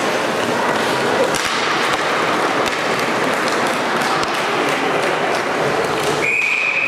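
Ice hockey rink noise during play: a steady hubbub of the hall with scattered clacks of sticks and puck on the ice. About six seconds in, a single steady high tone starts and holds.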